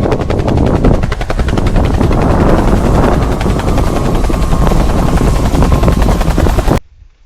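Helicopter passing low overhead, its rotor chopping loud and fast. The sound cuts off suddenly near the end.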